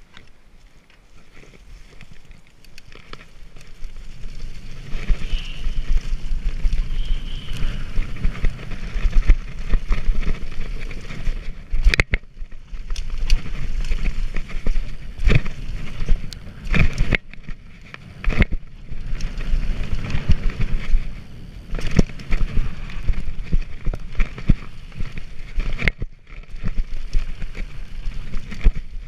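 Kona Process mountain bike riding down a dirt track, heard from a camera on the rider: tyre rumble and wind on the microphone build over the first few seconds, then run on with frequent sharp knocks and rattles from the bike over bumps.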